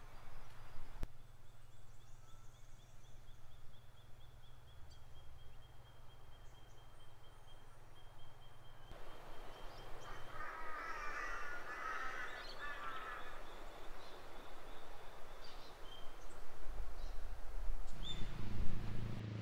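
Outdoor bush ambience of birds calling: a high, steady trill through the first half, then a burst of chattering calls about ten seconds in, over a low background rumble that grows near the end.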